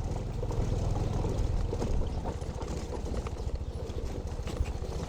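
Car driving slowly over a rough unpaved village road: a steady low engine and road rumble with a few small knocks and rattles from the bumps.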